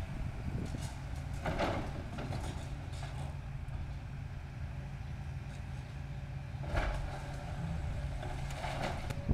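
Hitachi 250 tracked excavator's diesel engine running steadily while its demolition grab tears at a brick wall, with three crashes of falling brick and rubble: about a second and a half in, about seven seconds in and near the end.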